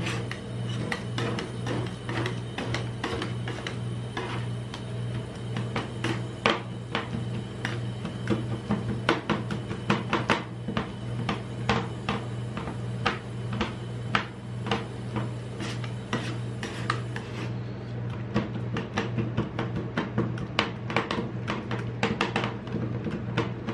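Metal spatulas chopping and scraping ice cream mixed with chocolate on the steel cold plate of a rolled-ice-cream pan: rapid, irregular clinks and scrapes of metal on metal, over a steady low hum.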